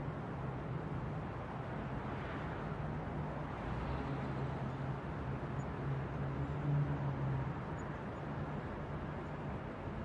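New York City night ambience heard from a rooftop: a steady wash of distant traffic over a constant low hum, with a brief swell a couple of seconds in.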